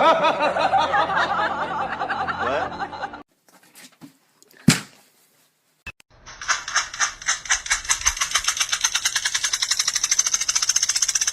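A person laughs for about three seconds. After a short quiet break with a single sharp click, a fast, even rattle of rapid pulses starts about six seconds in.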